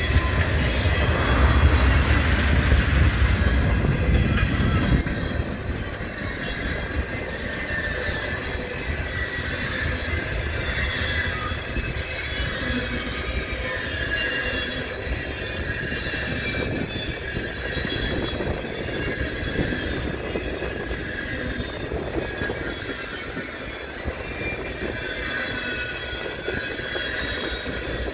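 Railroad train rolling past, its wheels squealing in several high, wavering tones over a steady rumble. It is louder for the first five seconds or so, then eases to a lower, even level.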